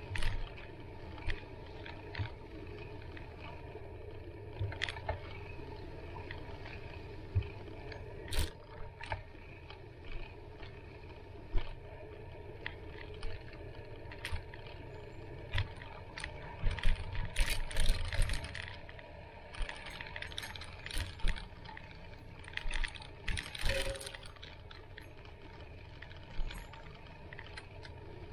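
Bicycle rolling along a bumpy dirt forest trail: a steady low rumble of tyres on dirt, with scattered knocks and rattles from the bike over the bumps. The rattles come thickest about two-thirds of the way through.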